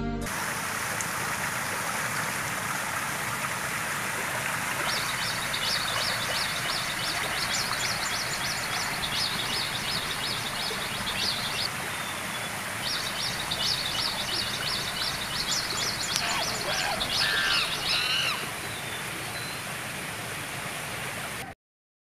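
Wild birds calling in a mangrove bird sanctuary over a steady hiss: long trains of rapid, high chirps, with a few harsher, lower calls mixed in. The sound cuts off suddenly near the end.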